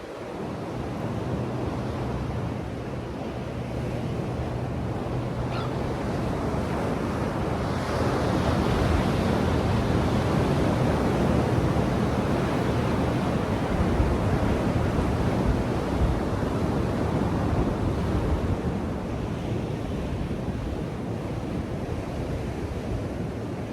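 Ocean surf washing onto a beach, a steady rush of breaking waves that swells louder about a third of the way in and eases off again near the end.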